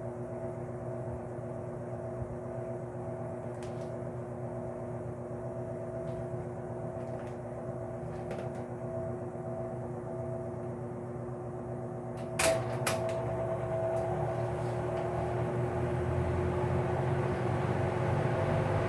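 Vintage Lakewood P-58 box fan motor running with a 20-inch propeller, a steady hum with a whooshing air sound. About twelve seconds in come two sharp clicks, after which the running sound grows steadily louder.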